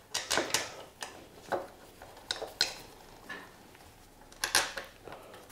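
Scattered metal clinks and clicks of hand tools and bolts as the rear brake caliper of a moped is bolted back on; the loudest clink comes about four and a half seconds in.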